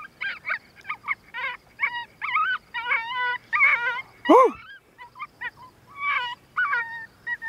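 Coyote pup distress sounds from an electronic predator caller: a quick run of short, high, whining yips and whimpers, with one louder, lower yelp a little past halfway.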